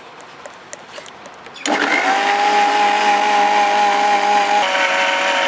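Electric blender switched on about a second and a half in, its motor running steadily with a high whine and stepping up in pitch near the end, as it blends egg and oil into mayonnaise.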